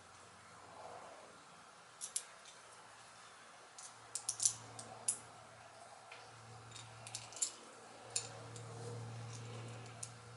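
Scattered light metallic clicks and ticks, some in quick little clusters, from a wrench turning a hood gas-strut ball stud into its nut.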